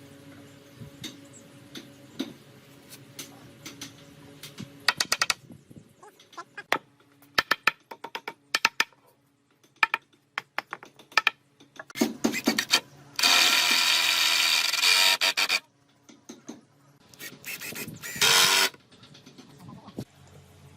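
Woodworking sounds: scattered sharp taps and knocks on wood, with a loud harsh noise lasting about two seconds a little past the middle and a shorter one near the end.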